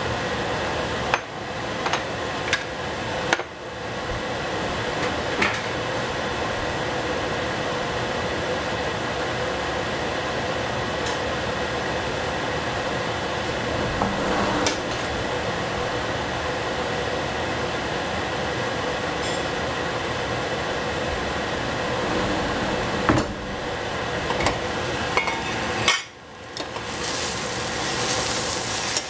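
Fried rice frying in a pan with a steady sizzle, while a spatula knocks and scrapes against the pan every few seconds. Near the end the sizzle dips for a moment and then comes back brighter and louder.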